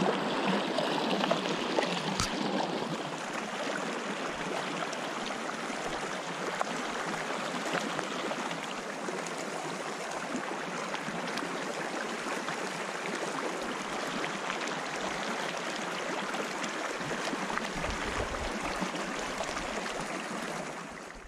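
Small mountain feeder stream running over rocks: a steady sound of flowing water, with a short click about two seconds in.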